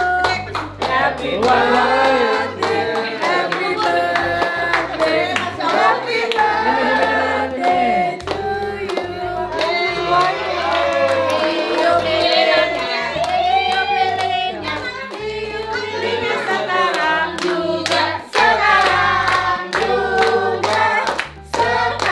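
A group of people singing a birthday song together, clapping along in time.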